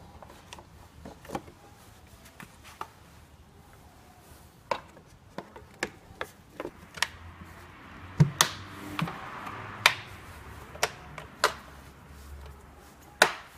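Plastic air filter housing being put back together: the filter element set in and the lid pressed into place, giving a series of irregular sharp plastic clicks and knocks, loudest about two-thirds of the way through and again near the end, with a short rustle of handling in between.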